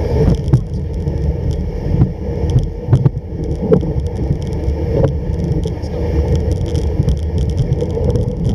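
Home-made kick sled running over snow: a steady rough rumble and scrape from the runners, with scattered knocks and jolts.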